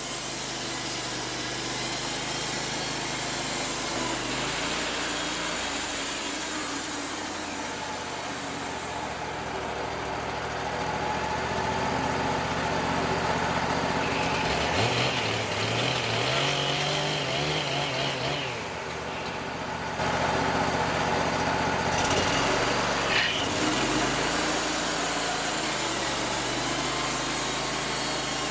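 Wood-Mizer LT35 portable band sawmill running and sawing, its engine pitch shifting several times and growing louder about two-thirds of the way through.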